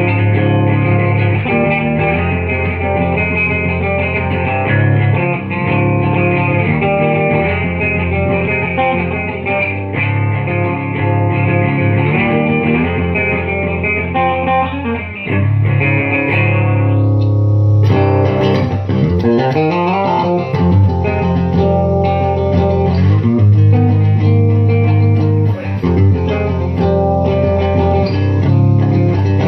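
Schecter electric guitar with Dialtone pickups playing a continuous run of riffs and notes. After a brief break about seventeen seconds in, the tone turns brighter, followed by sliding notes.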